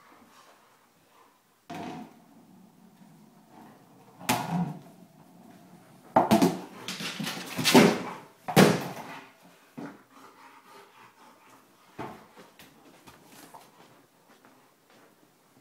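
A dog pushing a large 14-inch Push and Play ball around, the ball bumping and scraping against walls, doors and furniture. There are scattered knocks and a loud run of bumps about halfway through.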